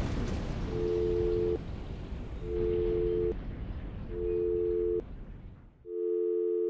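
A telephone's two-note busy tone beeping four times at an even pace, about one beep every 1.7 s, over the fading rumble and hiss of a bomb explosion. The rumble dies away shortly before the end, and the last beep cuts off abruptly.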